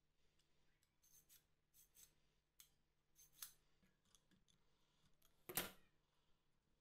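Faint small metallic clicks and scrapes as a pin is worked out of the steel body of an old AXA glazing point driver with pliers, the loudest a brief scrape about five and a half seconds in.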